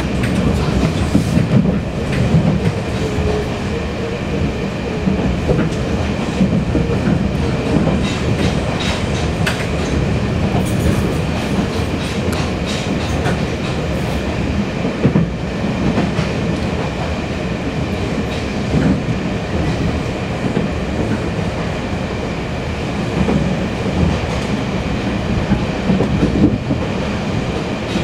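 Taiwan Railways Fu-Hsing-class passenger coach running at speed, heard from inside the carriage: a steady rumble of wheels on rail with occasional clicks.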